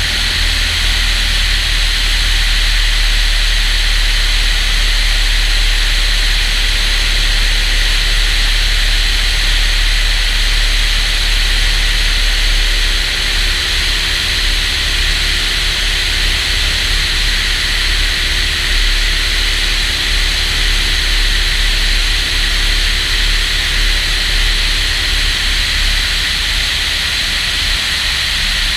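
Kitfox light airplane's engine and propeller running steadily, with a constant rushing hiss of wind over it.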